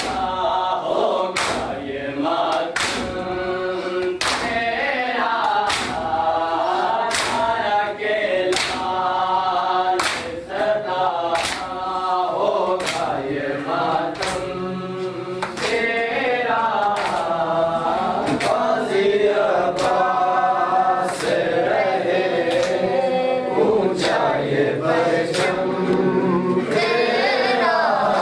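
A group of men chanting a noha, a Muharram lament, in unison while beating their chests in matam. The hand slaps land together in a steady beat, about three every two seconds.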